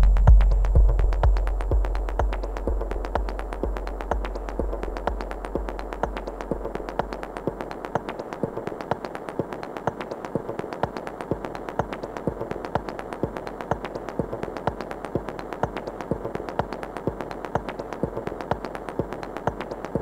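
Techno pattern played live on a Korg Volca Sample sampler. Over the first six seconds the deep bass fades away and a tone glides downward, leaving a fast, steady run of clicky percussive hits.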